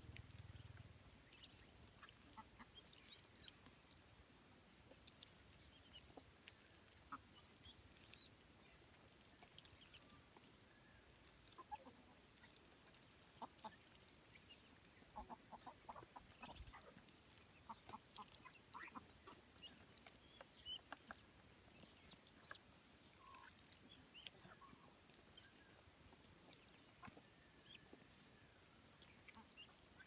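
Faint, scattered calls of a feeding flock of ducks, ducklings and hens, mixed with short clicks of bills pecking at feed. The calls and clicks come thickest about halfway through.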